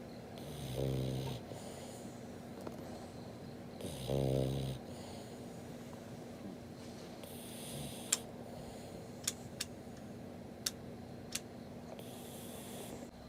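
French bulldog snoring: two deep snores, about a second in and around four seconds in, with softer breathy exhales later and a few sharp clicks between them.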